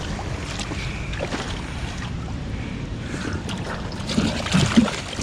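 Steady rush of river water below a dam, with scattered small knocks and splashes and a brief louder stretch of noise about four seconds in.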